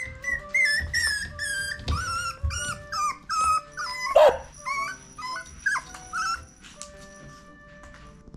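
Mame-shiba puppy giving a quick run of short, high-pitched whining cries that bend up and down in pitch, with one louder bark falling in pitch about four seconds in. Soft background music plays underneath.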